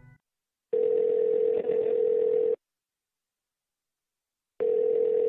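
Telephone ringback tone heard down the line as a call is placed: two steady two-second rings about two seconds apart, with the thin sound of a phone line.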